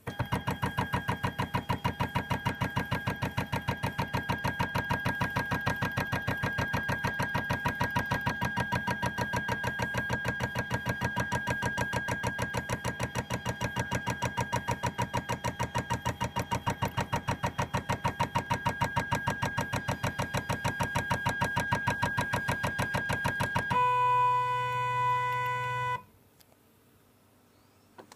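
Nema 17 stepper motors of a DIY coil winder running, a whine that pulses rapidly and evenly as the spindle winds enamelled copper wire onto an EFD20 bobbin. About 24 seconds in, the pulsing gives way to a steady tone for about two seconds, then the sound cuts off.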